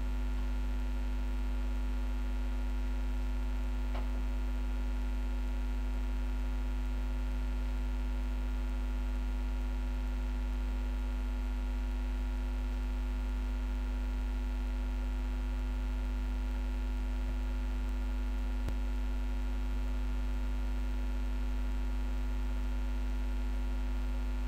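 A steady low electrical hum with several constant tones above it, unchanging throughout, with a couple of faint ticks.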